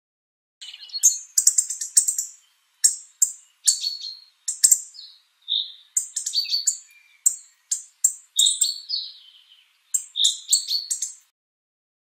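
Hawfinch song played forwards: runs of sharp, high clicking notes mixed with a few short whistles, in several bursts over about ten seconds.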